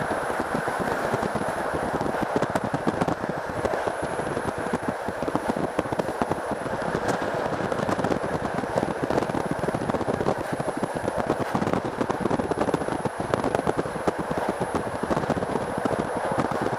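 Passenger train coach running at speed, heard from inside: a steady rumble of wheels on rails with a dense, rattling clatter.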